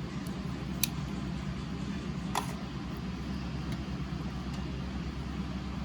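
Steady low background hum with two short clicks, about one second and two and a half seconds in.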